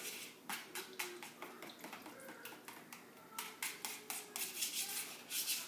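A whisk scraping and tapping against a mixing bowl as a thin Alfredo sauce is whisked. Quick, irregular clicks that come thicker and faster in the second half.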